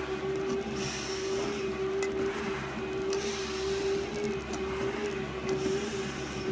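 Steady motor hum from a stair-climbing exercise machine. Over it, a firefighter climbing in a full face mask takes two hissing breaths, about a second in and again after three seconds.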